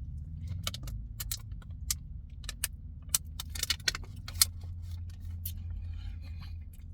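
Chewing a crispy pretzel sandwich close to the microphone: irregular sharp clicks and crunches, over the low steady rumble of the car.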